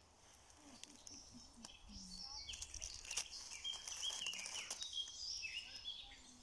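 Faint woodland birdsong, a scatter of short high chirps and twittering notes, with a little rustling and clicking of dry leaves being handled.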